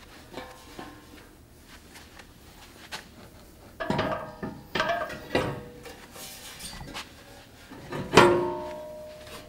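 Heavy steel off-road front bumper being fitted onto a Jeep JK's frame horns: a few metal clunks around four and five seconds in, then a loud ringing clank about eight seconds in as it seats on its mounts.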